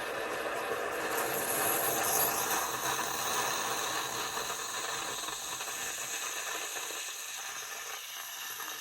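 Bosch Tassimo pod machine dispensing a drink, its pump running steadily with a hiss of hot water and steam. The low part of the sound dies away after about six seconds while the hiss continues more quietly.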